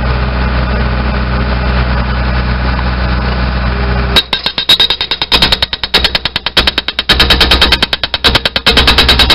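Backhoe engine running steadily, then about four seconds in a Tramac 125 hydraulic breaker starts hammering its chisel into the ground in rapid sharp blows, in short runs with brief pauses.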